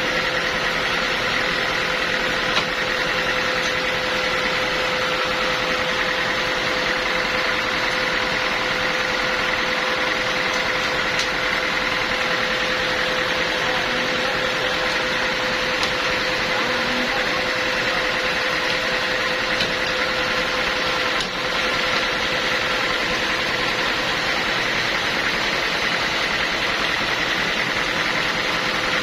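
Portable sawmill running steadily: a constant machine drone with a steady tone, dipping briefly about 21 seconds in.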